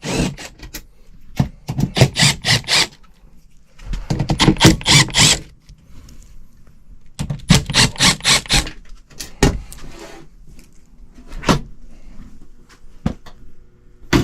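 Hands and tools working on a heat pump air handler's sheet-metal cabinet: several bursts of rapid clicking and rattling, each a second or so long, with a few single knocks later on.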